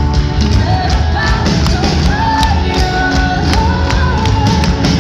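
Pop-rock band playing live through a concert PA: pounding drums, heavy bass, guitars and keyboards, with a gliding melody line over the top.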